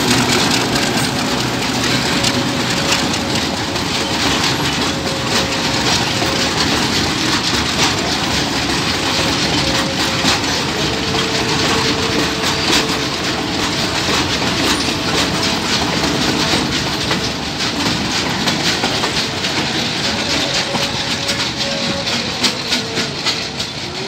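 Diesel-hauled container freight train passing close by: a steady rolling rumble with wheels clicking over rail joints, loudest at the start as the locomotive goes by and then carried on by the wagons.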